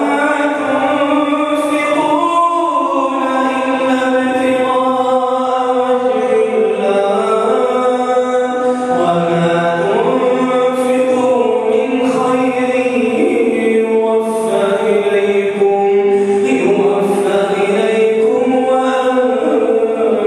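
A man reciting the Quran in melodic tajwid chant during prayer. He holds long drawn-out notes that slide slowly from pitch to pitch.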